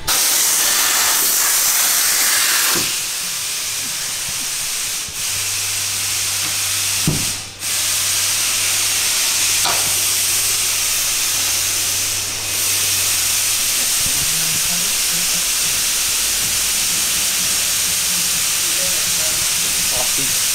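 Compressed air hissing loudly and steadily from an air tool, broken by a few short dips as the flow is eased off. A low steady hum runs beneath it for several seconds in the middle.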